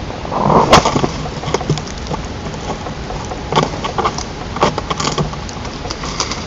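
Irregular knocks, cracks and rustles of sticks on a white-tailed eagle nest, the loudest cluster about a second in, over a steady hiss.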